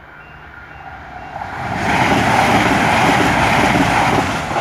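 Class 221 Super Voyager diesel multiple unit passing at speed. A rush of wheel and engine noise builds over the first two seconds, holds loud, and falls away sharply near the end as the train clears.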